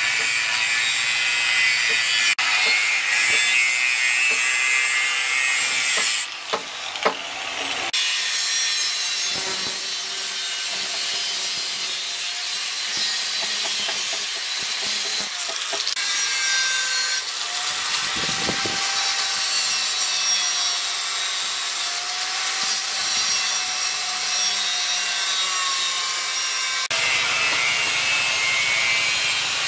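Electric angle grinder with a cutting disc slicing through steel plate: a continuous harsh grinding hiss with a motor whine that rises and falls as the disc is loaded. The sound changes abruptly a few times where shots are cut together.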